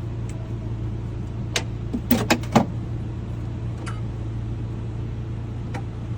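Sharp clicks of a key blank being set and clamped in a key-cutting machine: one about a second and a half in, a quick cluster of three or four around two seconds in, and two lighter ones later, over a steady low hum.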